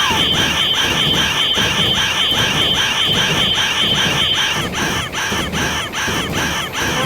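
Railroad crossing alarm ringing its repeated 'kan-kan' strikes, about two and a half a second, with a steady high tone over it that stops about two-thirds of the way through.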